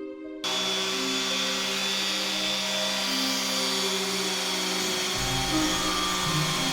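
A power tool starts about half a second in and runs steadily with a constant hum and a high whine, over soft background music.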